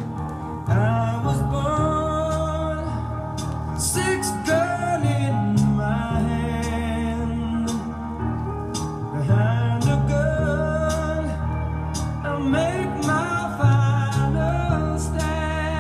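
A vinyl LP playing on a Garrard Synchro-Lab 72B turntable: a song with singing over guitar and a steady bass line.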